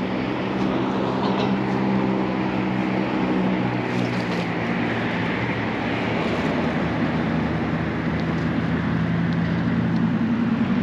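Steady rushing noise of a bicycle ride, wind and tyres on pavement, with a low steady hum underneath.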